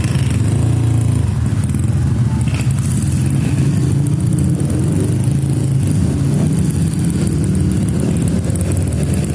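Several Honda Win motorcycles idling together, a steady engine note with no clear revving.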